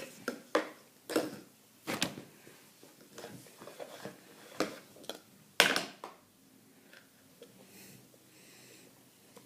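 A young child eating: about half a dozen short wet mouth smacks and clicks at irregular intervals, the loudest about six seconds in.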